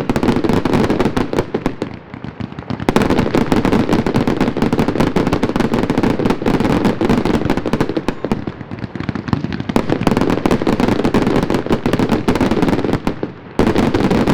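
Daylight fireworks going off in a dense, rapid string of bangs and crackle, thinning briefly about two seconds in and again near the end before a fresh barrage starts suddenly.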